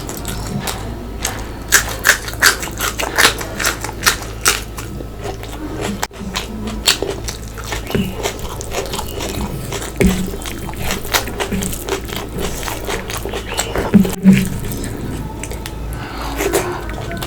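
Close-up mouth sounds of a person eating: chewing and biting food, with many sharp, irregular crunches, thickest in the first few seconds, over a steady low hum.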